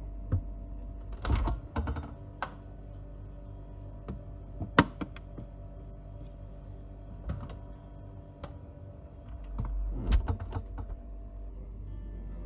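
Plastic food-storage container being handled and set onto a refrigerator shelf: scattered sharp clicks and knocks, the sharpest about five seconds in, with a cluster of knocks near the start and another near the end. A steady low hum runs underneath.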